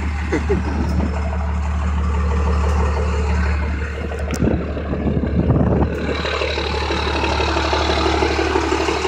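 1995 Dodge Ram's 12-valve Cummins 5.9-litre inline-six turbodiesel idling steadily.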